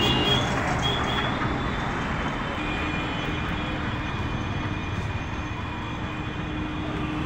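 Road traffic passing on a busy road, trucks among it: a steady rumble that eases off after the first second or so.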